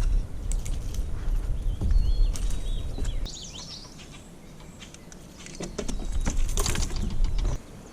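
Scattered clicks and rustling of a caught pickerel being unhooked from a treble-hooked topwater lure, over a low wind rumble. A bird chirps a few times about halfway through.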